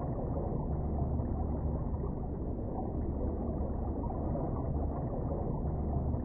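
Muffled underwater ambience: a steady low rumble with the high sounds cut away, beginning to fade out at the very end.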